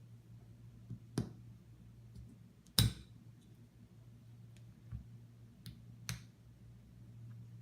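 Scattered sharp metal clicks and taps of small pistol parts being handled while a steel Gadget striker-control backplate is fitted to a Glock slide. Two louder clicks fall about a second and about three seconds in, over a steady low hum.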